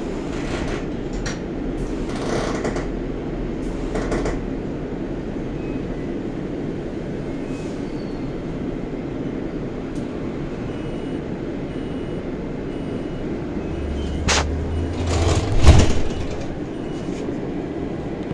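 Steady running rumble of a city tram heard from inside the passenger cabin. Past the middle comes a sharp knock, then a louder clunk and rattle with a deep rumble.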